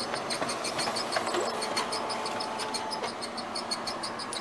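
Kyocera laser printer running while printing, with a fast, evenly repeating high squeak of about six chirps a second over its mechanical running. Light lubrication of the gears has not cured the squeak, and the owner thinks it is not likely to be the fuser.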